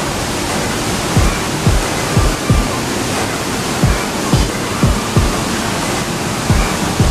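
Steady rushing of a waterfall close by, with the dull thumps of footsteps on a rocky trail, about one or two a second and unevenly spaced.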